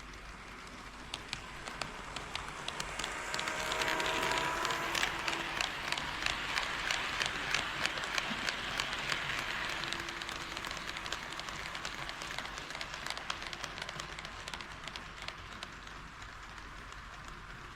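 HO scale model train, a KATO D51 steam locomotive model, running past on the track: wheels rolling and clicking quickly over the rail joints. It grows louder over the first few seconds, is loudest for several seconds with the rapid clicking, then slowly fades away.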